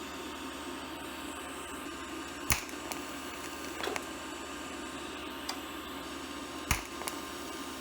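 TIG welding arc on steel plate, a steady buzzing hiss, with two sharp clicks about two and a half seconds in and near the end. The thick base plate is slow to melt.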